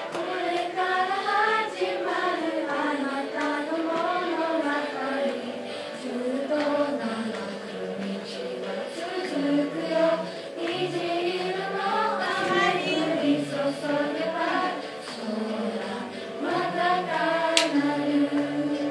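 A group of young girls singing a song together as a choir, their voices carrying one melody line with held and gliding notes.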